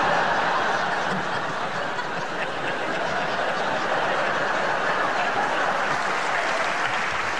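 Theatre audience laughing and applauding at a punchline: a steady wash of clapping and laughter that eases off slightly toward the end.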